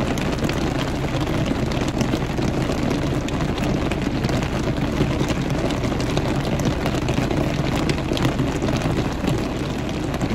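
Steady rain falling on a car's roof and windows, heard from inside the cabin, with many small ticks over a steady low hum from the car.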